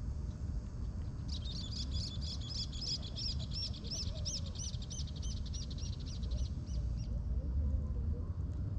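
A bird singing a fast trill of repeated chirps, about four a second, starting about a second in and stopping about seven seconds in, over a steady low rumble.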